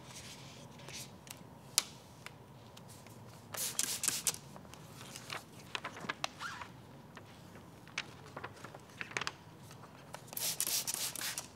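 Paint protection film being peeled off its backing liner, a faint scratchy rubbing and crackle with a sharp click about two seconds in. Two clusters of short hissing bursts, around four seconds in and near the end, from a spray bottle of soap and water wetting the film's adhesive side.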